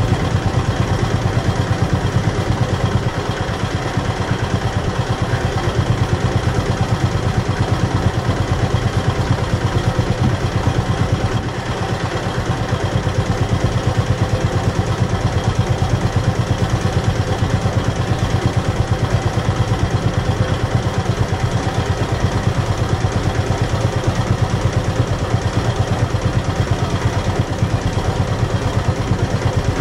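A boat's engine running steadily, with a strong low hum and a fast, even throb.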